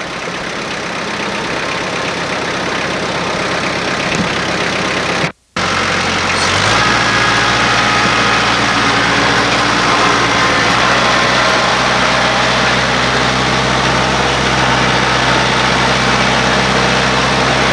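Tractor engine running steadily, picking up speed to a higher, steady note about six and a half seconds in. The sound cuts out completely for a moment just before that.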